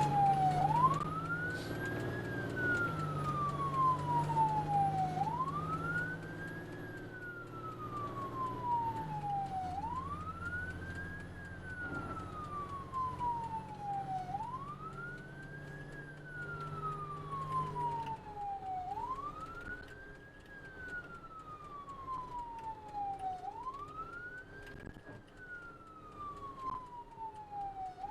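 Ambulance siren in wail mode: each cycle rises quickly and falls slowly, repeating about every four and a half seconds, over a low steady vehicle hum.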